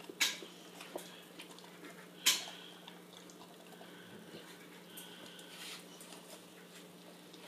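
A boxer dog biting and chewing a whole apple: two sharp crunches, the louder about two seconds in, with smaller crunches and quieter chewing between.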